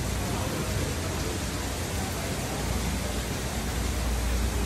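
Steady rushing background noise with a low rumble underneath: the ambience around an indoor display pond.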